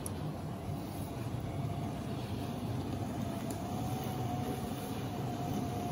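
G-scale model steam locomotive running slowly along the garden railroad track: its electric motor and wheels on the rails make a steady low rumble, with a thin whine that rises a little about halfway through.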